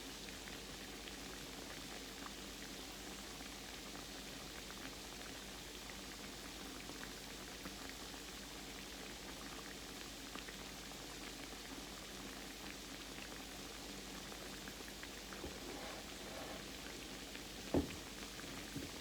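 Croquettes frying gently in a pan of grease kept on low heat: a faint, steady fizz with small scattered crackles. A single sharp click sounds near the end.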